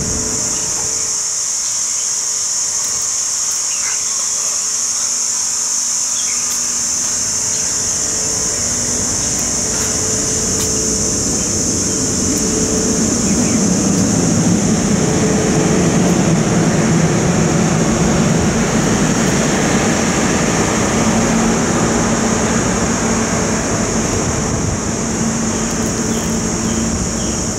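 Outdoor ambience with a steady high-pitched buzz throughout. Halfway through, a low rumble swells and fades again, as of a vehicle passing.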